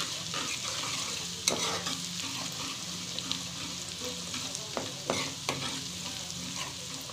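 Ground garlic, red chilli and cumin paste sizzling in hot oil in a metal kadai, stirred with a spoon that scrapes and clicks against the pan a few times.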